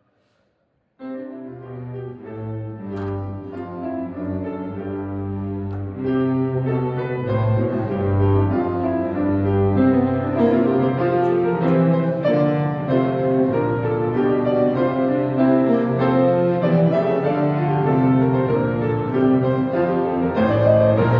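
Instrumental ensemble of bowed strings and piano playing a piece. It starts suddenly about a second in after a moment of silence and grows fuller and louder about six seconds in.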